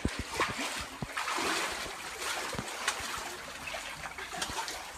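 Shallow seawater splashing and lapping among rocks in a narrow passage, with a few scattered short knocks.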